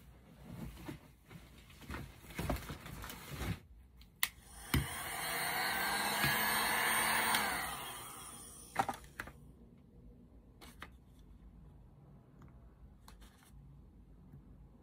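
Electric heat gun blowing for about three seconds, then winding down, used to warm wax candle toppings so they fuse together. Light clicks and knocks of handling come before and after it.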